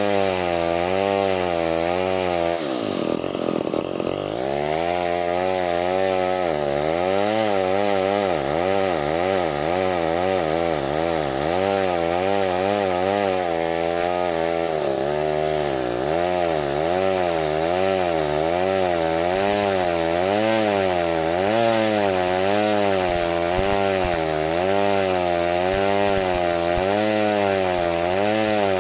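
Stihl 070 two-stroke chainsaw running under load, cutting through timber for a square post. Its engine pitch wavers up and down about once a second as the cut goes on, and sags sharply a few seconds in before picking up again.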